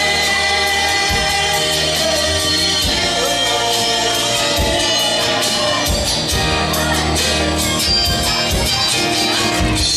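Music with a singing voice over a steady bass line, at an even loudness.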